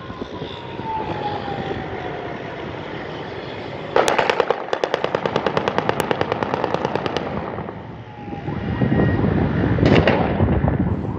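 Automatic rifle fired into the air in one long burst of about three seconds, roughly ten rounds a second, starting about four seconds in, over street traffic noise. Another sharp crack with a rumble comes near the end.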